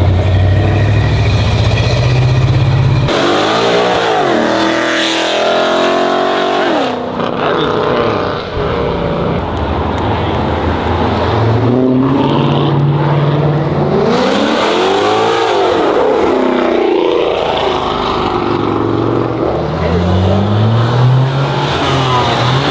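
Loud car engines revving and accelerating, their pitch sweeping up and down several times after a steady first few seconds.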